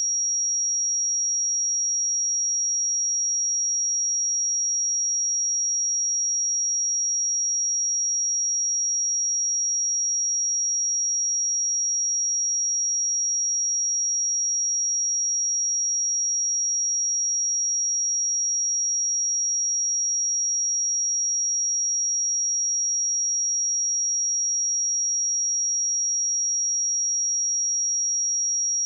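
A pure 5665 Hz sine-wave test tone, one steady high-pitched note held at a constant level.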